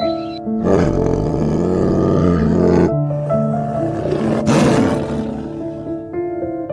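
A white tiger roaring twice over soft piano music: a long rough roar of about two seconds, then a shorter one.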